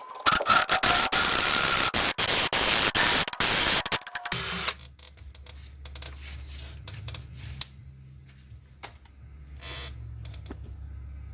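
A drill driving a 1 3/4 inch hole saw through the metal above a front coil spring, cutting in short pulses, then stopping about four and a half seconds in. After that only a low hum and a few light metallic clinks remain.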